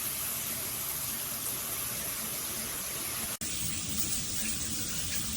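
Water spraying steadily from a BOONA Tandem dual shower head, an even hiss. About three and a half seconds in the sound cuts abruptly, then resumes deeper and fuller.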